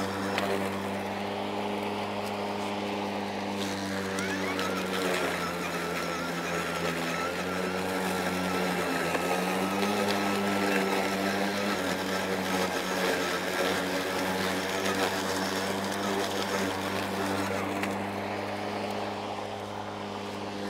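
Kobalt 40V Max brushless 20-inch self-propelled battery lawn mower cutting tall wet grass, its electric blade motor humming steadily. About five seconds in the pitch sags a little under the load, then climbs back up around nine to ten seconds, which the owner puts down to the electronics pulling more power to keep the blade speed up.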